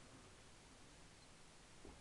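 Near silence: faint room tone, with a faint tick near the end.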